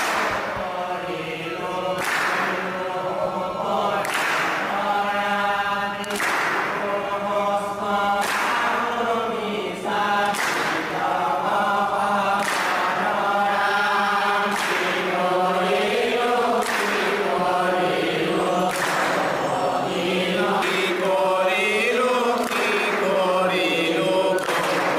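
A group of men chanting a devotional song together in long, drawn-out phrases, with a sharp percussive beat about every two seconds.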